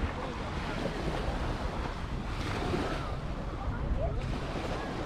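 Surf washing onto a sandy beach, a steady rush of waves with wind buffeting the microphone.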